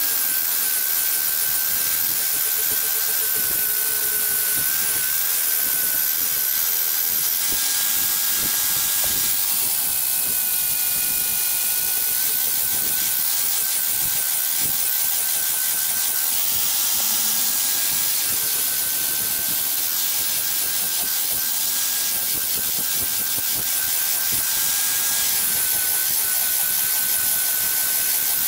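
Corded electric angle grinder with a sanding disc running continuously against a wooden walking stick: a steady high motor whine over the hiss of the disc abrading the wood. The whine dips slightly in pitch for a couple of seconds about ten seconds in, then recovers.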